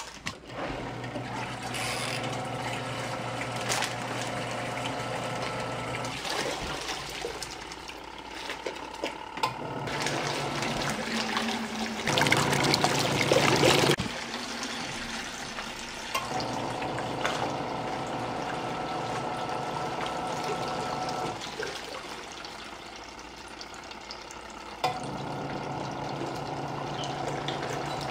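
Portable twin-tub washing machine's wash tub running, its motor humming and water churning, stopping and starting again a few times. A louder splashing stretch comes about halfway.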